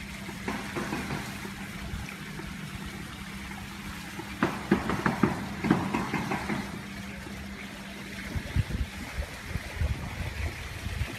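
Swimming-pool water trickling and lapping, over a steady low hum that fades out about eight seconds in. A cluster of sharp knocks about halfway through is the loudest part.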